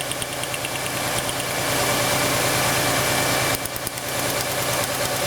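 A 1999 Honda Accord's 2.3-litre four-cylinder engine idling with a misfire from one dead cylinder. Sharp ticking comes about six times a second, which fits spark from the lengthened plug wire arcing to the side instead of reaching the plug. The ticking gives way to a steadier hiss for a couple of seconds in the middle.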